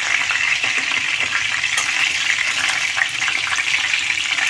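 Hot oil and butter sizzling steadily in a cooking pot where chicken pieces have just been browned, with a few faint crackles.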